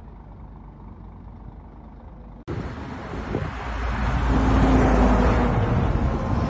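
Motorway traffic noise: a steady low rumble, then, after an abrupt cut about two and a half seconds in, much louder road and wind noise of vehicles moving at speed, with a faint engine hum.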